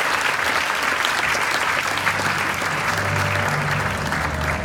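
Audience applauding steadily, a dense patter of many hands clapping. About two seconds in, low sustained music notes start to come in underneath.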